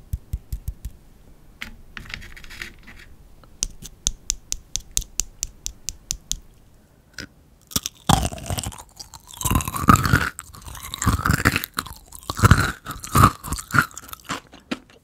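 Close-miked chewing of mint kohakutou, Japanese crystallised jelly candy: quick crisp crunches of its sugar crust at first, then louder, denser chewing from about eight seconds in.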